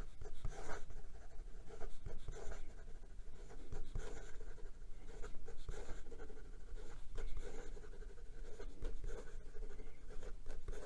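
Fountain pen with a 1.0 mm oblique stub nib scratching across notebook paper in quick, continuous cursive writing: an irregular run of short scratchy strokes.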